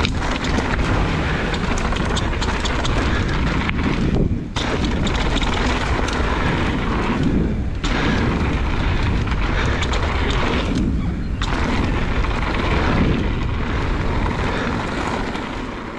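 Wind buffeting the camera microphone and mountain bike tyres running over the trail during a fast descent, a heavy low rumble with hiss on top. The higher hiss drops away briefly about three times.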